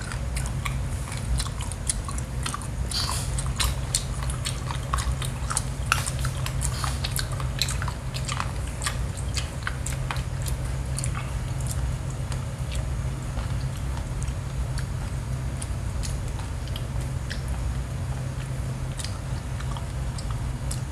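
A person chewing seafood close to the microphone, with many short wet clicks and crunches, thicker in the first half. A steady low hum runs underneath.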